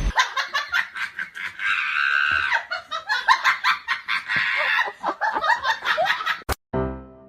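People laughing hard in a long run of quick laughs, cut off suddenly about six and a half seconds in.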